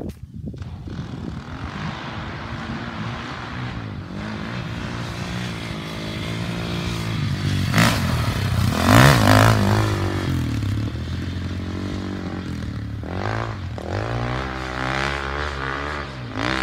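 Enduro dirt bike engine revving hard as the bike comes in, loudest around the middle as it jumps and passes close by, then a string of short rev rises as it accelerates away.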